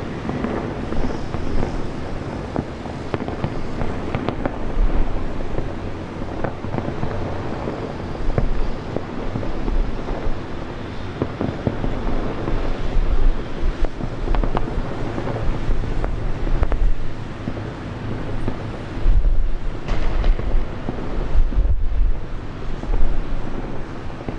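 Aerial fireworks show: shells bursting in a dense, continuous crackle with deep booms underneath.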